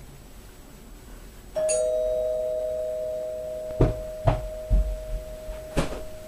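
Two-tone doorbell chime, ding-dong: a higher note, then a lower one a moment after, both ringing on and slowly fading. A few sharp thumps follow partway through.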